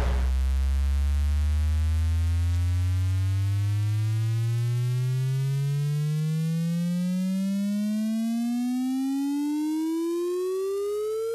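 An electronic tone with overtones, gliding slowly and steadily upward in pitch and fading a little toward the end.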